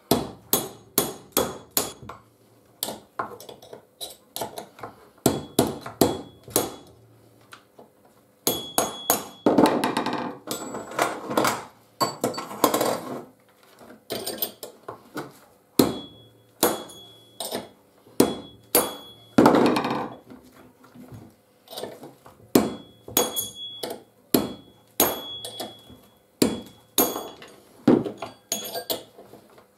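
Hammer tapping a cold chisel against a worn chainsaw clutch to turn it off its thread: repeated sharp metal strikes in runs of a few per second, some ringing, with a few denser rough flurries and short pauses.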